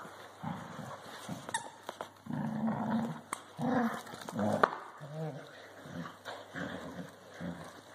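Two dogs growling in short, repeated bursts as they play-fight and tug at a plush toy.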